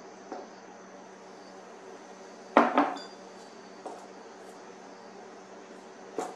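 Kitchenware clinking and knocking as beer is stirred into flour in a stainless steel mixing bowl with a spoon. There is a few scattered clinks, with one loud double knock about two and a half seconds in.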